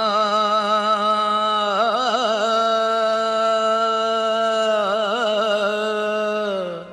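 A man singing one long wordless held note, with two wavering ornaments along the way, then sliding down and stopping near the end: the drawn-out opening of an Urdu devotional song.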